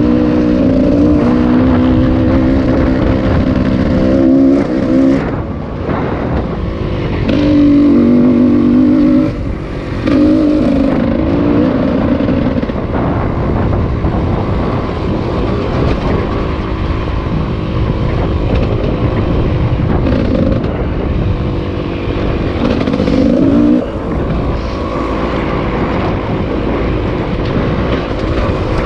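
Motor vehicle engine running hard under heavy wind and road noise. The revs drop off and pick up again several times, around 5, 9 and 24 seconds in.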